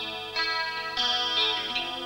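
Instrumental introduction to a TV drama's theme song: held chords that change twice.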